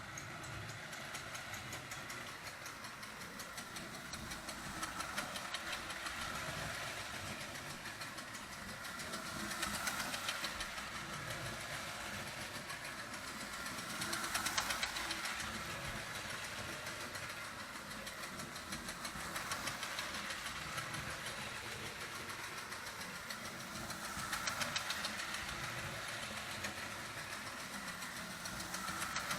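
Marx O27 toy steam locomotive running on its track with its chug-chug sound going: a fast, even chugging rattle over the whir of the motor and wheels, swelling and fading about every five seconds.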